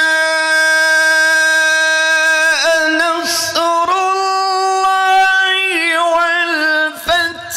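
A man's voice in melodic Quran recitation (tilawat), drawing out long held notes: a first note of about two and a half seconds, a quick breath, then a slightly higher held note, breaking into wavering ornamental turns near the end.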